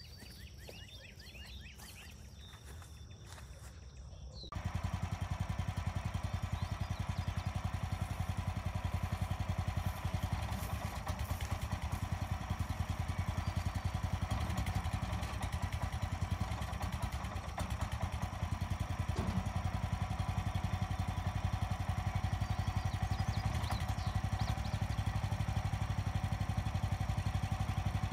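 Gasoline engine of a Woodland Mills HM126 portable sawmill running steadily with a fast, even pulse. It cuts in abruptly about four and a half seconds in, after a quiet start.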